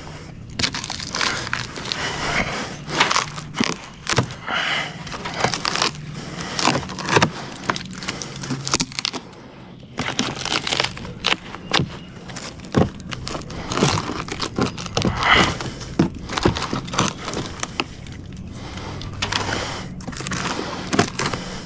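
Rotted wood fascia being pried and picked apart with hand tools: irregular cracking, crunching and scraping of soft, water-rotted wood, with a short pause about nine seconds in.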